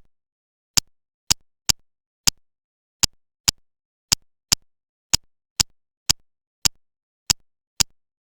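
Plastic building bricks clicking into place, about fifteen sharp, dry clicks at an uneven pace of roughly two a second, stopping shortly before the end.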